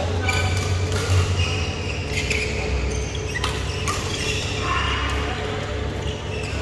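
Badminton doubles play in a large hall: a handful of sharp, irregular racket hits and footfalls on the court, with a few short high squeaks, over a steady low hum.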